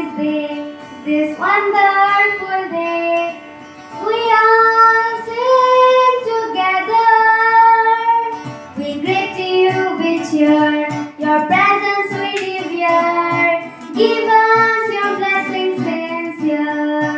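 A girl singing a song, phrase by phrase with short breaks, accompanied by an acoustic guitar.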